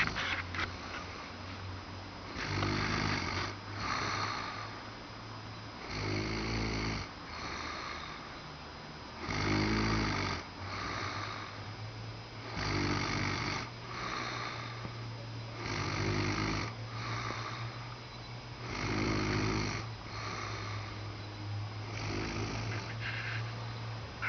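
A sleeping person snoring loudly and regularly, with a snore about every three seconds and some followed by a shorter second breath.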